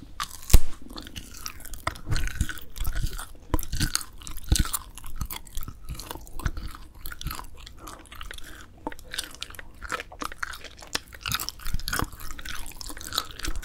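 Close-miked chewing of grilled dried filefish fillet (jwipo), with a sharp bite about half a second in followed by continuous chewing full of small clicks.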